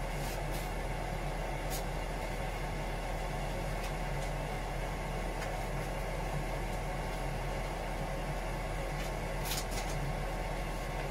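Steady hum and rushing of engine-room machinery, with a few faint clicks.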